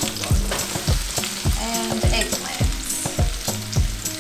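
Squash, cauliflower and eggplant frying in hot olive oil in a steel paella pan, a steady sizzle. Background music with a regular beat plays underneath.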